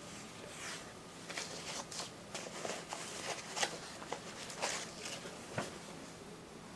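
Paper pages of a ring-binder sales catalog being turned one after another: a steady run of short paper rustles and flaps, two or three a second.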